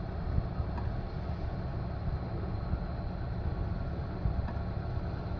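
Steady low rumble of the sailing yacht's inboard engine running as it motors over calm water.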